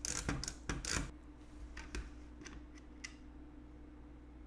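Screwdriver with a Torx bit clicking as it turns out the small screws of a wireless charging pad's case: a quick run of sharp clicks, about four a second, for the first second, then a few fainter clicks and scrapes. A faint steady hum runs underneath.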